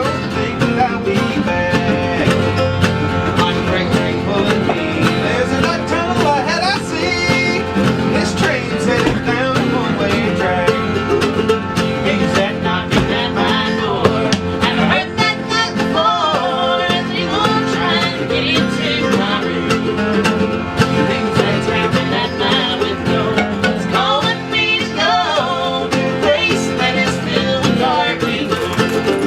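Acoustic bluegrass music played live on plucked strings, running steadily without a break.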